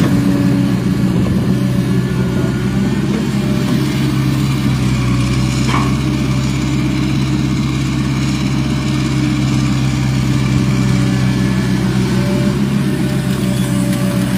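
Hitachi hydraulic excavator's diesel engine running at a steady pitch while the machine digs and lifts mud.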